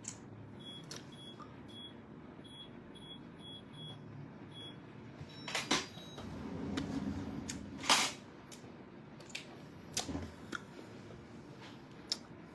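A run of short, high electronic beeps, unevenly spaced, over the first few seconds, followed by a few sharp clicks and knocks, the loudest about eight seconds in.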